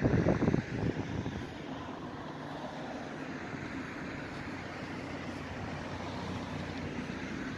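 A steady low engine rumble under outdoor background noise, after a brief louder burst of noise in the first half second.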